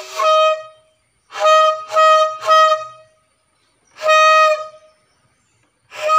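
Homemade balloon horn blown in short toots on one steady, buzzy pitch. One toot comes at the start, three follow in quick succession in the middle, another comes about four seconds in, and one more near the end.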